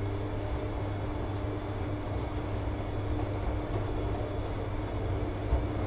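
Bosch front-loading washing machine tumbling its load in soapy water during the wash phase of a 90 °C cotton cycle, with a steady low motor hum.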